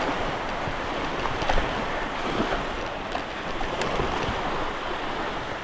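Steady rushing noise of a drop-bar mountain bike riding across beach sand, with wind on the microphone, and a few short clicks and knocks from the bike.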